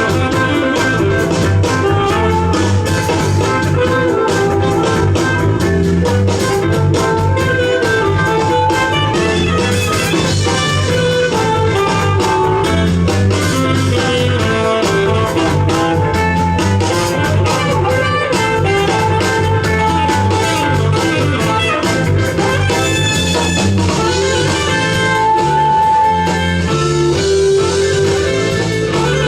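A live band playing an instrumental jazz-fusion tune: electric guitar over bass guitar and drum kit.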